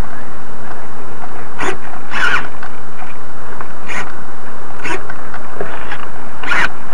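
Loud steady rushing of water and air past a small RC sailboat's hull (a Victor Models Blackhawk 32) as it sails, heard from onboard, with about five short splashes as waves slap the hull.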